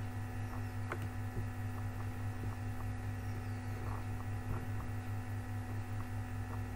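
Steady electrical hum from the recording setup, with a few faint clicks about a second in and again around four seconds in.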